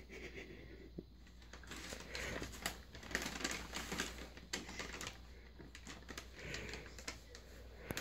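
Paper takeout bag rustling and crinkling in irregular crackles as a cat pushes its head inside and rummages, busiest from about two seconds in.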